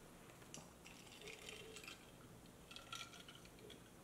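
Near silence: room tone with a few faint, soft rustles and light ticks.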